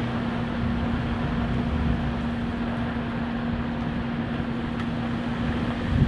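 Severe-storm winds gusting through trees, with heavy rain, giving a steady rushing noise and deep rumble. A steady low hum runs underneath.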